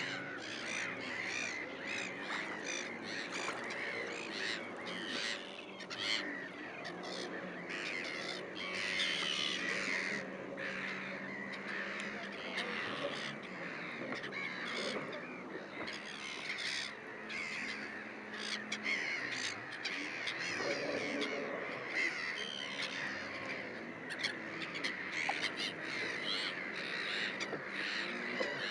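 A flock of gulls in flight calling without pause, many calls overlapping.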